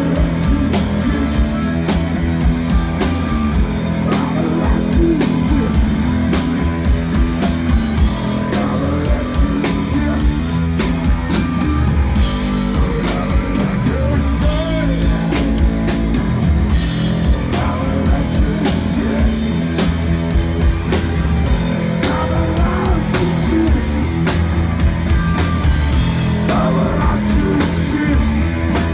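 Rock band playing live: electric guitar and bass over a drum kit with a steady beat.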